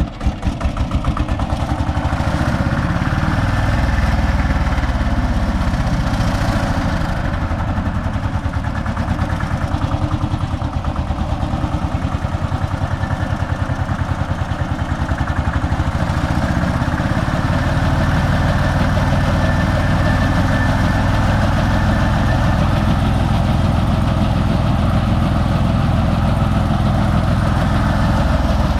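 Konma MT-S411D rice thresher running, coming up to speed within the first second and then running steadily with a rapid, even pulse. It is being run to find a 'dadada' knocking noise, which the repairer suspects comes from play in the grain-and-straw sorting section.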